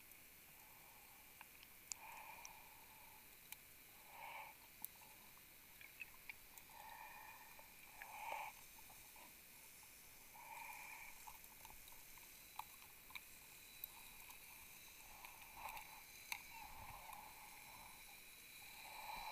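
Near silence underwater: faint soft rushes, each under a second long, and a few small sharp clicks.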